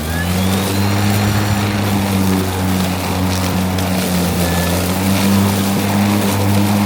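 EGO Select Cut cordless electric lawn mower with a high-lift blade running steadily under load while cutting thick, waist-high grass: a steady low hum over the rush of grass being chopped.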